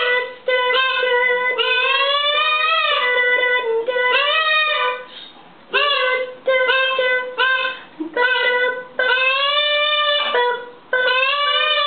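Singing: a tune of held notes on much the same pitch with upward swoops, in short phrases broken by brief pauses.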